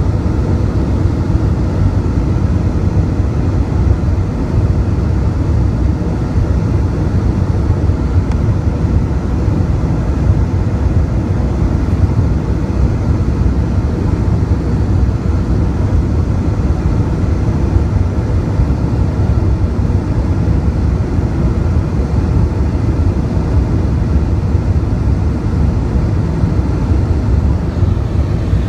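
Airbus A320 cabin noise heard from a window seat beside the wing in flight: the steady, deep rush of the jet engines and airflow, unbroken throughout.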